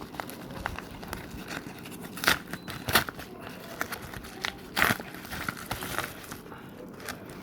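A mailing envelope and its wrapping being torn open and unwrapped by hand: irregular crinkling and rustling with sharp crackles, the loudest about two, three and five seconds in.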